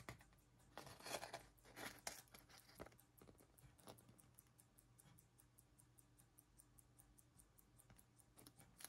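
Molnija 3602 18-jewel pocket-watch movement being pressed into a polystyrene foam block, with scraping and squeaking of the foam for the first few seconds. After that the running movement ticks faintly and evenly, about five ticks a second.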